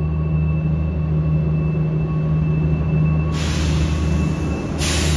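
China Railways HXD3D electric locomotive rolling slowly past on a station platform, with a steady low hum and a faint high whine. About three seconds in, two loud hisses of air break out, the first over a second long and the second shorter.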